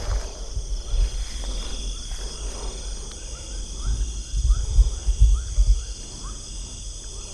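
Night chorus of crickets and other insects, a steady high-pitched trill, with a run of short rising chirps from about two and a half to five and a half seconds in. Low bumps of handling noise on the microphone come and go, loudest around four to six seconds in.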